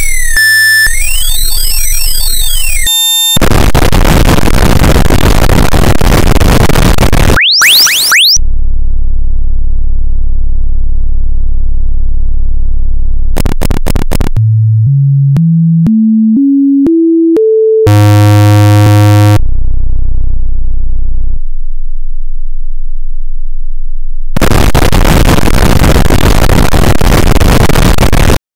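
Loud synthesized electronic sound collage: sweeping chirps and glides, blocks of harsh hiss, and a low steady drone. In the middle a pure tone steps upward about eight times, followed by a buzzy tone. It ends on hiss and cuts off abruptly at the very end.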